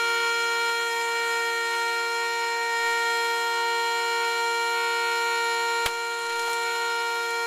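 Vehicle horn stuck on, sounding continuously in one steady, unchanging chord, most likely the horn of the burning truck. A single sharp pop about six seconds in.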